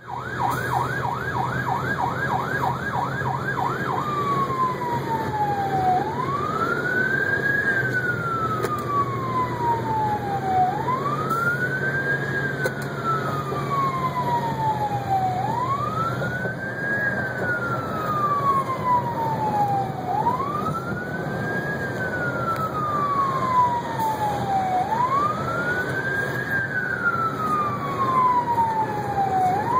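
Siren of a Horton Type I rescue truck responding code 3, heard from inside the cab: a fast yelp, about three sweeps a second, for the first four seconds, then a slow wail that rises quickly and falls away slowly, repeating about every five seconds.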